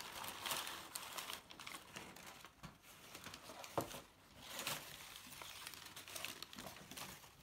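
Crumpled newspaper packing rustling and crinkling as it is pulled by hand out of a cardboard box, with irregular sharp crackles and a short lull about halfway through.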